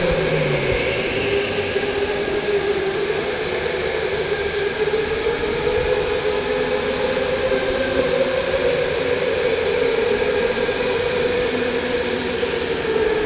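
Electric go-kart motor whining while driving, its pitch drifting gently up and down with speed, over a steady rushing noise.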